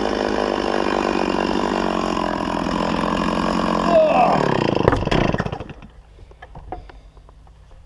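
Chainsaw running steadily as it cuts through cherry hardwood with a new standard chain, then the engine winds down in pitch and stops about five seconds in, followed by a few faint clicks.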